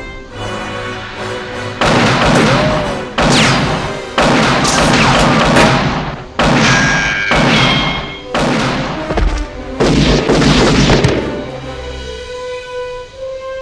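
Action-film sound effects: a string of heavy booms and impacts, roughly one every second or so, over film-score music. The booms stop about ten seconds in, leaving the music's held notes.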